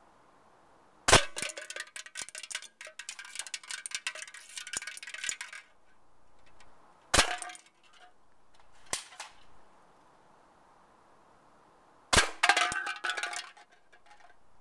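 Three shots from an airsoft M14, each a sharp crack, about a second, seven seconds and twelve seconds in. The first and last are each followed by a clatter of small metallic clinks and rattles, lasting about four seconds after the first and about a second after the last.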